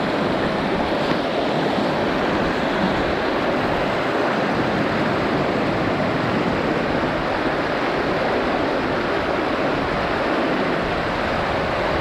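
River rapids rushing over rocks close by: a steady, unbroken wash of white water.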